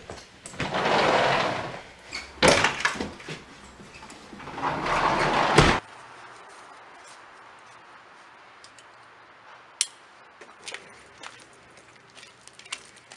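A house door being opened and shut as someone goes out: loud rustling and scraping with a sharp knock, cutting off suddenly about six seconds in. After that, quiet outdoor air with a few faint clicks and ticks.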